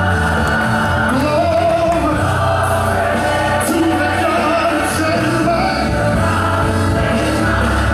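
Gospel song playing, with choir and lead voices singing over the band at a steady loudness.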